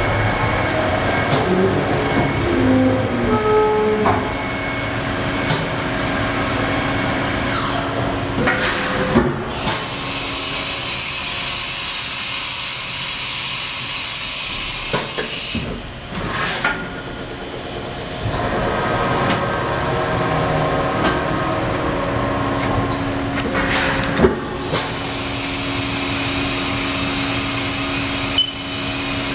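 A Haas VF-6 CNC vertical machining center running through a test program: a steady mechanical hum and whine, several sharp clunks of the carousel tool changer and axis moves, and two long hisses of air, the second as the spindle releases its tool for a tool change.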